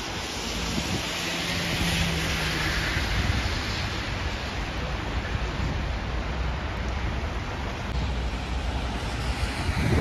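Street ambience of wind rumbling on the microphone and traffic on a wet, slushy road, with car tyres hissing through slush, loudest about one to three seconds in.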